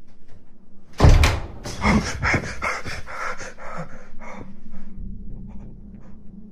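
A sudden loud burst of noise about a second in, then quick, rhythmic panting, about five breaths a second, for about three seconds before fading, over a steady low hum.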